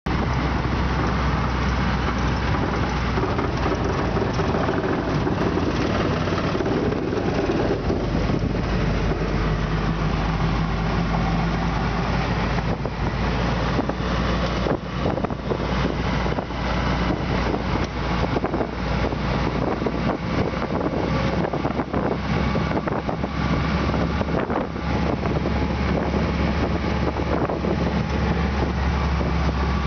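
WWII Willys MB/Ford GPW jeep's four-cylinder flathead engine running under way on a gravel road, with tyre noise and frequent short rattles and knocks from the vehicle.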